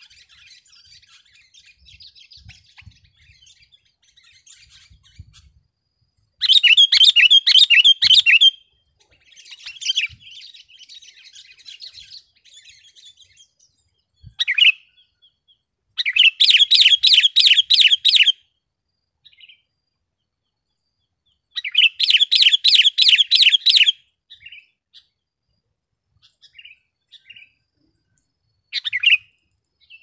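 Sooty-headed bulbul singing in full voice: three loud two-second phrases of rapid repeated whistled notes, with softer twittering and a few short calls between them.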